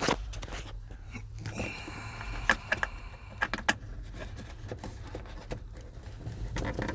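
Scattered small clicks and scrapes of a Phillips screwdriver straining against a tight, stuck screw in an old truck's glove-box panel, with a short thin squeak and a low steady hum underneath.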